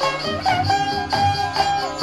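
Instrumental prelude of a South Indian devotional keertana: a melodic instrument line with sliding pitch bends over a steady drum beat and light high percussion.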